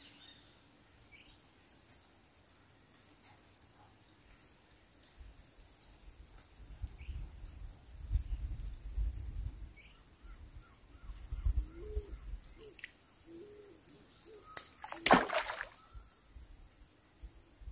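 Faint outdoor ambience with an insect trilling steadily at a high pitch. Low rumbling runs through the middle, a few faint short calls come near twelve seconds, and a brief sharp noise about fifteen seconds in is the loudest thing.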